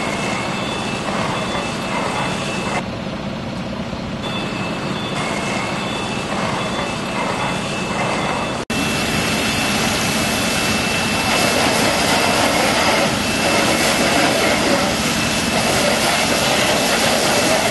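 Steady engine and rushing noise of fire engines running their pumps and hose jets at a large building fire, with faint high tones over it. The sound cuts off for an instant about nine seconds in and comes back louder.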